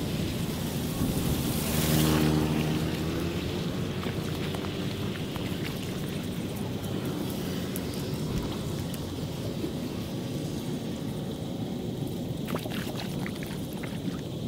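A motorbike engine passing, loudest about two seconds in, then fading, over a steady wash of wind and outdoor noise.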